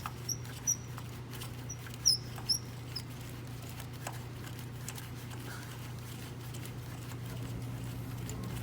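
A tool working a spark plug loose from a Subaru engine: a few sharp clicks and short high squeaks in the first three seconds, then steady low hum.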